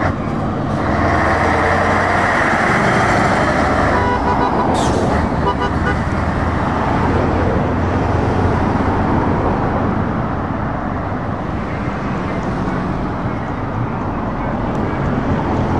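Heavy truck engines passing close by on a road: the Scania 143M 450's V8 is loudest at first, then other trucks and traffic go by in a steady stream. A horn toots about five seconds in.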